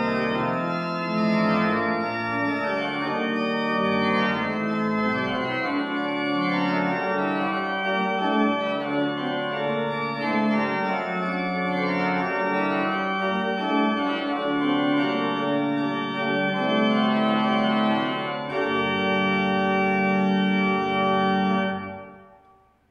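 Pipe organ playing the closing bars of a G-minor prelude on a full principal chorus: 16' Quintade, 8' Principal, 4' Octave, 2 2/3' Quint, 2' Gemshorn and mixture. The final chord is held for about three seconds near the end, then released, and the sound fades out within about a second.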